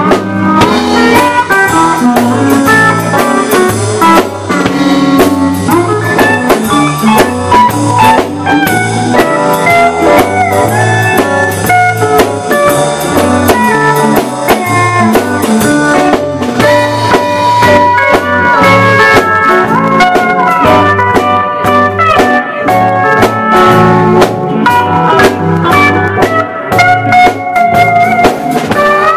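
A live country band plays an instrumental break with no singing. A steel guitar plays sliding lines over electric bass and a drum kit beat.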